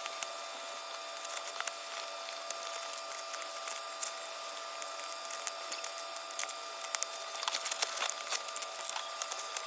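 Packaging being handled and opened: a steady run of small crackles and crinkles, busier near the end, over a faint steady tone.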